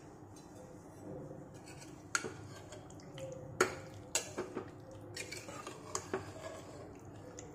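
A metal ladle stirring cooked potato curry in a metal pressure cooker, clinking and scraping against the pot in scattered knocks from about two seconds in.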